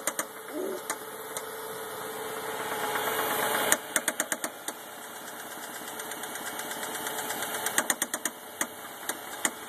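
Mazda 6 engine with rod knock, revved twice. Each time, the engine note climbs for a few seconds, then a burst of loud, rapid knocks comes as the revs fall back, and a steady knock continues at idle. This is the knock of a worn connecting-rod bearing.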